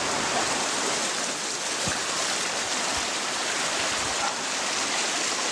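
Steady rush of a swollen river running high and fast after heavy rain.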